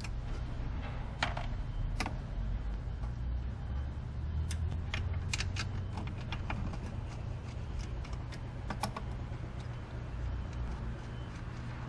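Scattered small clicks and clinks of hands working the brake-line fittings on a van's master cylinder, in a few quick clusters, over a steady low hum.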